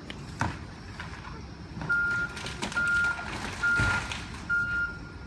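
Backhoe loader's backup alarm beeping about once a second, starting about two seconds in, over its running engine. A sharp knock about half a second in.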